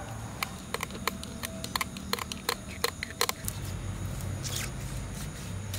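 Kitchen knife scraping the scales off a whole fish on a wooden board: a quick, irregular run of sharp clicks for about three seconds, then a softer scrape.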